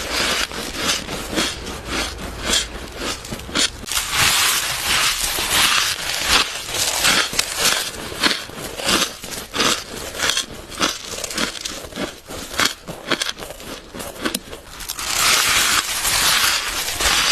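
Close-miked biting and chewing of soft frost ice, a dense run of crisp crunches with heavier bursts about four seconds in and again near the end.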